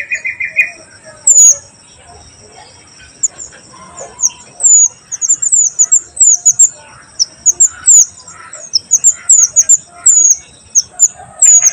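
Oriental magpie-robin (mantenan) calling: a long series of short, sharp, high notes, each sweeping quickly downward, a few per second, over a steady high-pitched hiss. A brief rapid trill comes right at the start.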